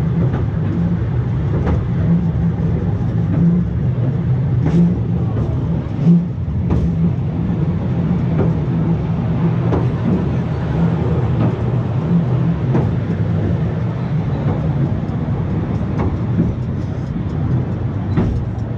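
Cable-hauled funicular railway car running down a steep track: a steady low rumble of the wheels on the rails, with scattered clicks and knocks.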